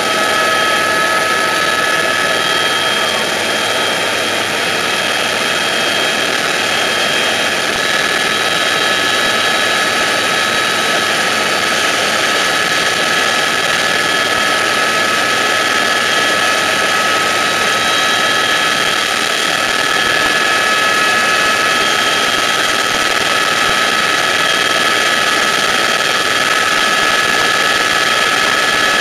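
Eurocopter EC130 Eco-Star helicopter in flight, heard from inside the cabin: a steady turbine whine with several high, even tones over a constant rotor and engine roar.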